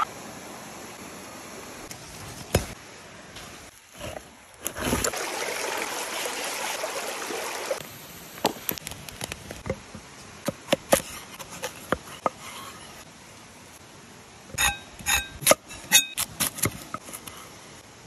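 A knife cutting vegetables on a wooden board, heard as a series of sharp clicks, with a quick cluster of ringing knocks near the end. Under it runs the steady rush of a mountain stream, and for about three seconds, roughly five seconds in, a louder rushing noise rises over it.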